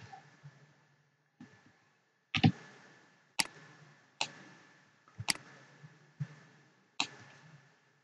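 Computer mouse clicking: about six sharp single clicks roughly a second apart, over a faint steady hum.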